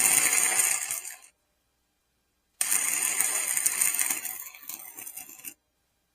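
Electric arc welder crackling and buzzing through two short welds on small metal pieces: the first stops about a second in, the second starts near the middle and runs about three seconds. These are tack welds, to be burned in afterwards.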